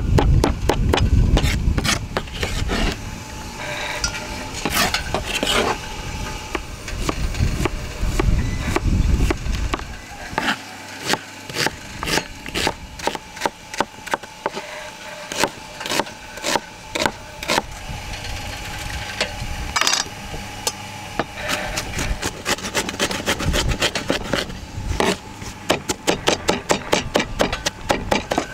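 A large knife chopping vegetables (red onion) on a wooden cutting board: quick knocks of the blade on the wood, in fast runs that come thicker near the end. A low rumble sits under the first ten seconds.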